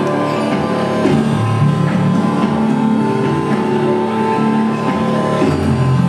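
Loud chiptune music: a bass line of short held notes stepping up and down in pitch, with higher synth tones above it.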